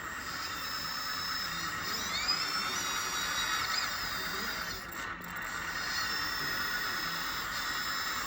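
Hydraulic pump and motors of a 1/14-scale RC hydraulic backhoe loader running: a steady high whine over a buzzing hiss. The whine glides up in pitch about two seconds in and holds, wavers near four seconds, and dips briefly about five seconds in.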